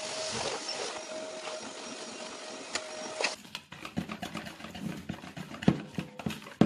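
Canister vacuum cleaner running steadily with a steady whine, cutting off suddenly a little over three seconds in. Then a utensil clicks and taps against a bowl as something is stirred.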